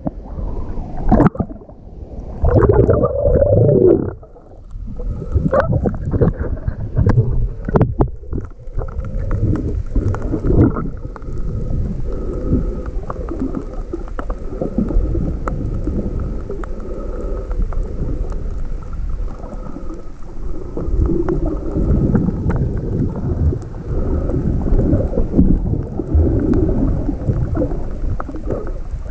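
Rough sea surf churning and sloshing close to the microphone: a low, muffled rumble with irregular surges and a few thuds in the first few seconds.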